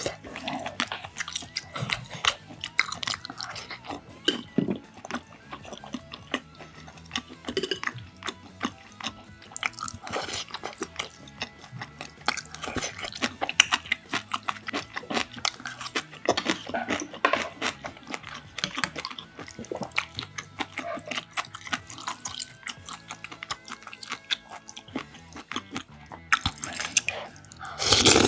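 Close-miked chewing and wet mouth sounds of eating, with small sharp clicks, likely chopsticks against dishes. Near the end comes a loud slurp of beef-bone broth from a spoon.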